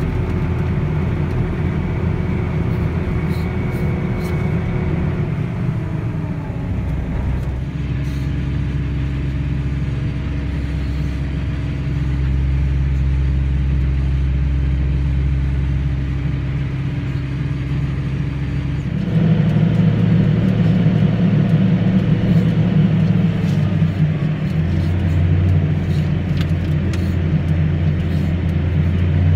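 Farm machinery engines droning while chopping silage, heard from inside a cab: a steady low hum that shifts in pitch about seven seconds in and grows louder about 19 seconds in.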